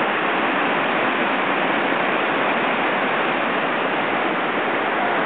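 Whitewater rapid rushing steadily over and between boulders, a constant, even rush of water with no breaks.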